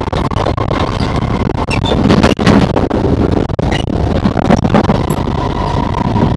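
Singapore MRT train running along the track, heard from inside the car by the doors: a steady rumble of wheels on rail with a thin steady high tone over it, swelling a little about two seconds in.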